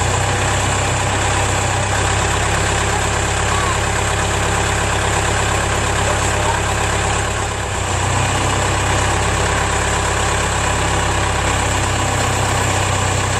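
Backhoe engine idling steadily, with a brief dip in its sound about two-thirds of the way through.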